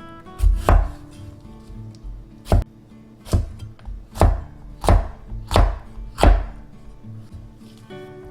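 Kitchen knife chopping food on a cutting board: about eight sharp, separate chops, spaced slowly and unevenly at first, then at an even pace of about one every 0.7 s.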